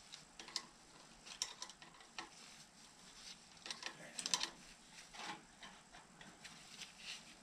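Spanner and small steel parts of a David Brown 996 tractor's throttle linkage clicking and scraping at irregular intervals as a nylock nut is worked on by hand, with a quick cluster of clinks about four seconds in.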